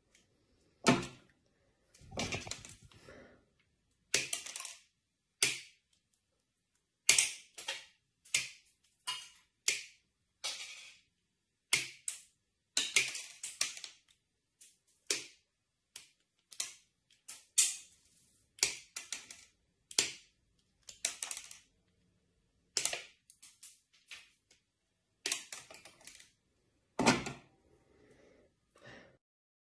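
A series of sharp, irregular clicks and snaps, roughly one a second, some trailing off in a short rattle.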